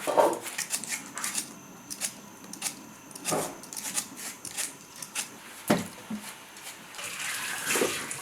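Kitchen work sounds: scattered clinks and knocks of pots, bowls or utensils, with some water sounds. A few louder knocks come about three, six and eight seconds in.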